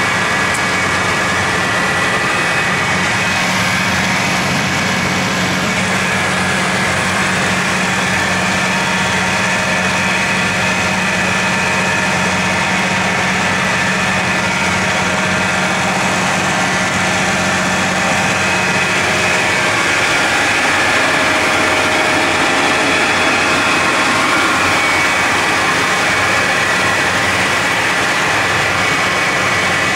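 A machine running steadily and loudly, a constant mechanical noise with several steady hum and whine tones in it that does not change.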